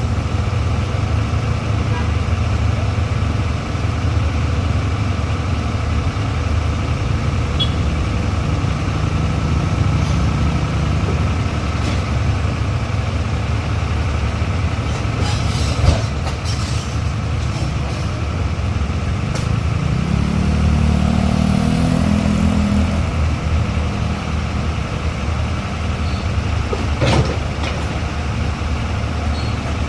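Heavy diesel engines running steadily, with one engine working harder for a few seconds about two thirds of the way through. A single sharp knock comes about halfway.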